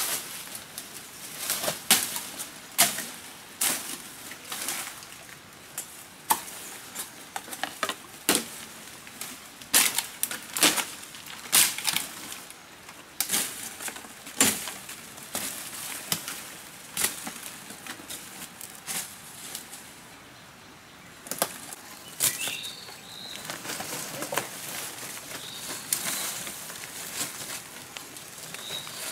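Dry leaves, twigs and fern fronds rustling and crackling in irregular bursts as a person scrambles up a steep slope through dense undergrowth. A few faint high bird chirps come in near the end.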